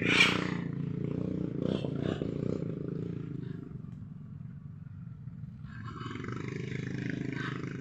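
Wind buffeting the microphone: a steady low rumble, with a short loud rush right at the start.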